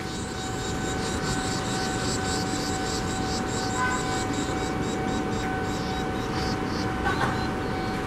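Barn swallow nestlings begging at the nest: a rapid series of short, high chirps that fades out after about six seconds, over a steady hum and a low rumble.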